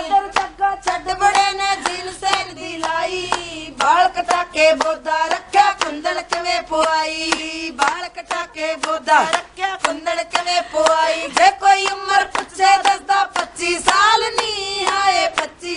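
Women singing Punjabi boliyan together, voices raised, with sharp hand claps keeping an even beat.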